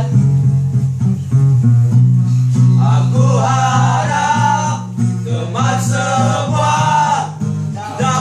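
Acoustic guitar playing chords while a group of male voices sings together. The singing comes in more strongly a few seconds in.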